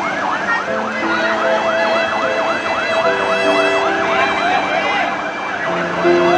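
A fast yelping siren sweeping up and down about three times a second, over steady held notes of background music that change every second or so.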